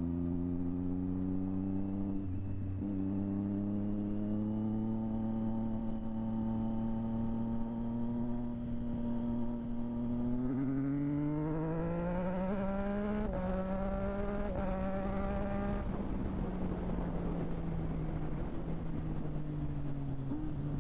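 Triumph Street Triple 765 RS's three-cylinder engine through a Delkevic aftermarket exhaust, running at a steady speed and then pulling harder about ten seconds in, its pitch rising. About sixteen seconds in the engine note gives way to a rushing noise, then settles to a lower note that slowly falls.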